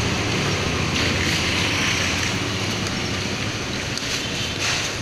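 Steady low engine hum under an even hiss of background noise.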